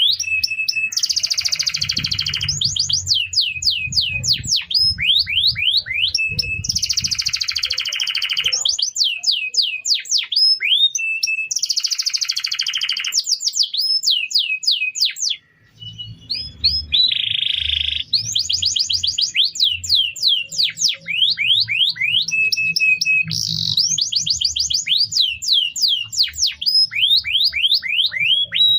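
Domestic canary singing a continuous song of fast trills of rising notes and buzzy rolls, with a brief pause about halfway through. A low hum runs under much of it.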